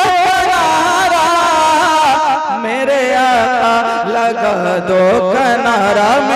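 A man singing a verse of a naat into a microphone, drawing the words out in long, ornamented melodic runs with held notes.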